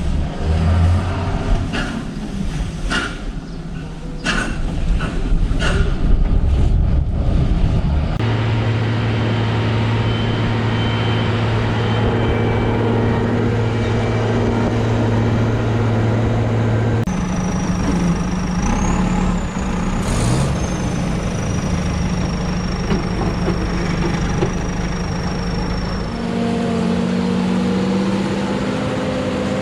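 Heavy farm machinery engine running steadily, heard in several cut segments. The first several seconds carry repeated knocks and clatter. In the middle stretch a high whine runs over the engine and rises briefly.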